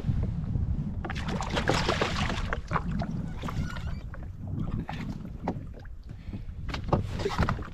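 Wind rumbling on the microphone over water around a drifting jet ski, with irregular bursts of splashing and rustling as a small snapper is pulled out of the water.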